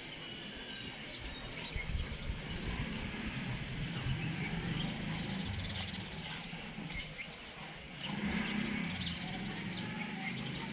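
Faint, scattered bird chirps over a low, uneven outdoor rumble that swells a few times.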